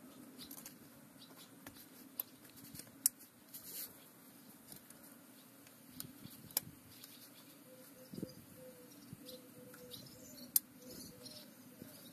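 Faint light clicks and scraping of a cast iron sealing ring being worked by hand into its groove on a Massey Ferguson Multi Power input shaft, with a few sharper clicks several seconds apart.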